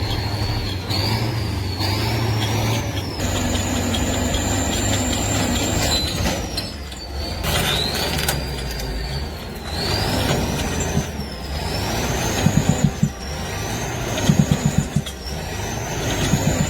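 Heavy diesel tractor engine revving again and again under load, with a high whine that rises and falls with each rev over a steady low drone. Short pulsing bursts come near the end.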